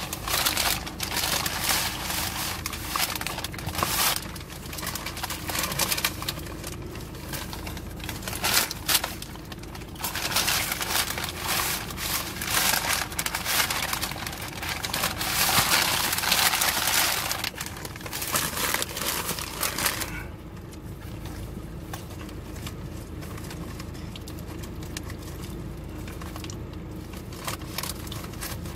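Crinkling and crumpling of a packaged sandwich's wrapper as it is torn open and peeled off, in irregular bursts that die down about twenty seconds in.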